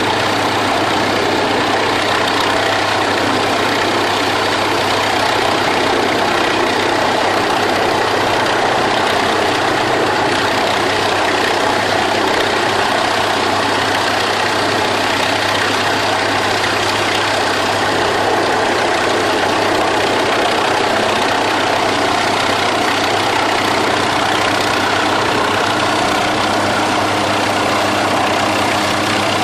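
Unmanned MQ-8B Fire Scout helicopter's turbine engine and rotor running steadily at a constant pitch, a loud, even drone with a low hum underneath.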